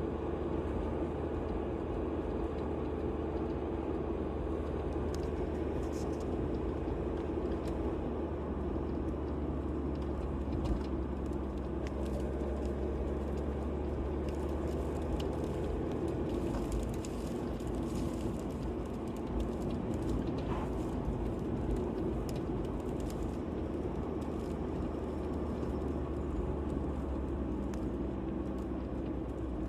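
Steady vehicle engine and road noise, a continuous low drone with a light crackle on top.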